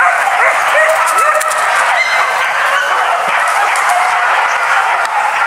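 A pack of hunting dogs yelping and barking, many short falling cries overlapping.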